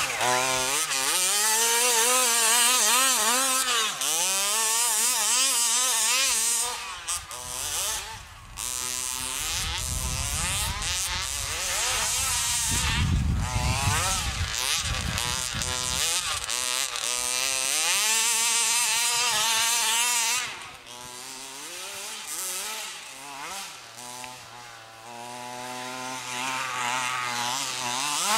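27cc two-stroke gas engine of a large-scale radio-controlled truck revving up and down as it drives through snow, its pitch rising and falling again and again with the throttle. There is a low rumble for a few seconds midway, and the engine is quieter for a few seconds in the second half.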